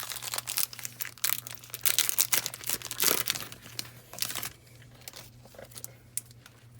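Foil trading-card booster pack wrapper being crinkled and torn open: dense crackling for about four seconds, then softer handling.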